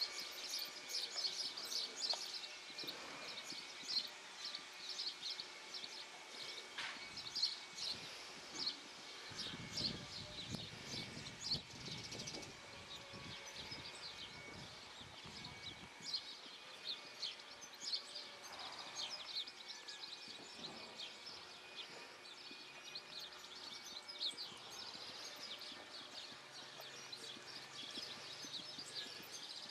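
Outdoor ambience with birds chirping, a steady stream of short high notes. A low rumble runs for several seconds in the middle.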